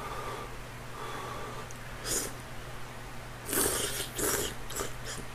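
Slurping soba noodles from a bowl of hot curry broth: several short noisy slurps, the loudest a little past halfway.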